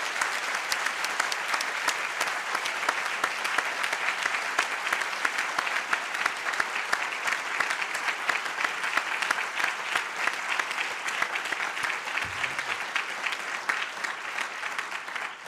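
Audience applauding steadily for about fifteen seconds, dying away at the end.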